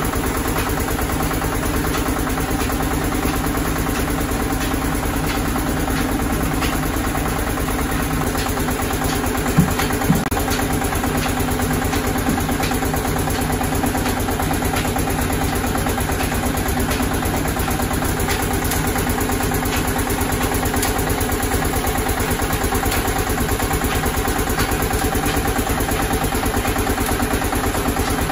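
Belt-and-flywheel oil press (expeller) running steadily under its engine drive, a dense mechanical hum with a rapid even beat and faint light ticks a little more than once a second. Two short sharp knocks sound about ten seconds in.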